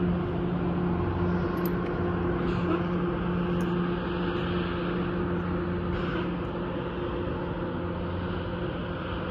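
Heavy engine running steadily with a low drone, which eases off a little in the second half.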